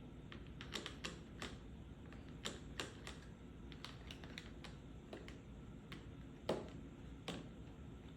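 Tapping on a medicine pill box: irregular light taps, some in quick little runs, with one louder tap about six and a half seconds in.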